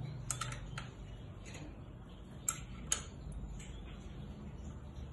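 Sharp, irregular metallic clicks of combination wrenches against the bolts of an air compressor's cylinder head as the head bolts are tightened: a quick cluster near the start, two single clicks in the middle and two more near the end.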